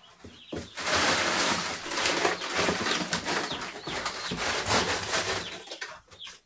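Dry compound grower feed poured from a sack into a plastic barrel: a steady rushing hiss of grains with a crackly patter, starting about a second in and dying away near the end.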